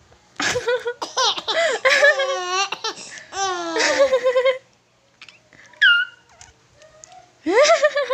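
Baby laughing in long, high-pitched giggling runs, then a short high squeal and another burst of laughter near the end.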